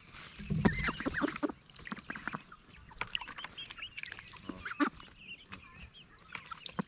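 Young hens clucking and cheeping with duck quacks among them, and scattered short taps of beaks as the birds peck food from a bowl. A low bump just under a second in is the loudest sound.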